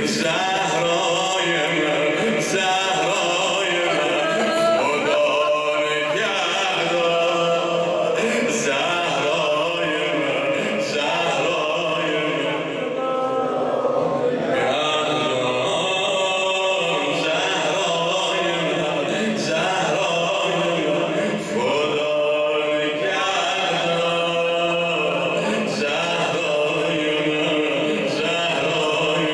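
A man chanting a Persian mourning elegy (noha) in a continuous, melodic recitation.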